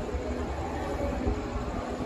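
SMRT Kawasaki Heavy Industries C151 metro train approaching the platform, a steady low rumble of its wheels and motors on the track.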